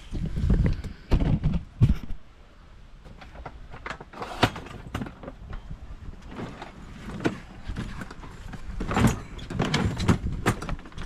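Stanley cantilever toolbox being handled in a van: several heavy thumps in the first two seconds, then scattered sharp clicks and knocks, the clearest about four seconds in and again near the end.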